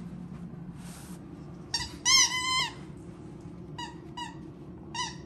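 A dog's rubber squeaky toy squeaking as the dog mouths and bites it. A quick run of loud squeaks comes about two seconds in, then short single squeaks every half second or so.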